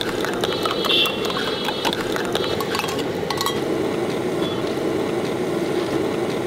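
Light clinks and taps of a steel cup and cooking utensils, mostly in the first half, over a steady low rumble that does not let up.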